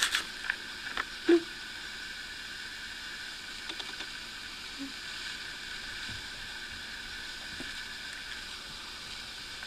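Steady hiss of room noise, with a few light taps in the first second and one short, louder blip just over a second in.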